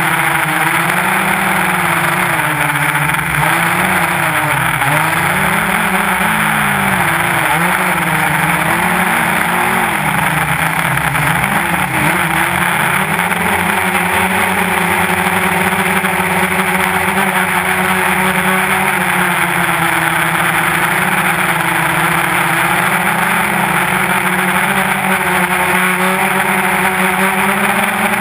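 Quadcopter's electric motors and propellers whirring, a steady buzz whose pitch wavers up and down through the first half as the motors change speed, then holds steadier.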